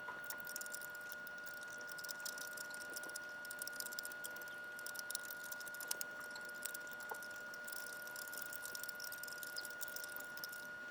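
Faint, scattered ticks and crackles of duct tape being worked and rolled by hand into a tight rod, over a steady faint high-pitched whine.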